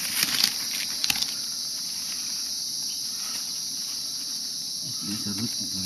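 Continuous high-pitched drone of a tropical forest insect chorus, with a few light clicks and rustles in the first second or so.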